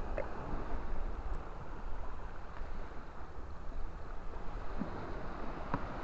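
Wind rumbling steadily on the microphone, with a couple of faint clicks from a screwdriver working the screw of a small plastic terminal block.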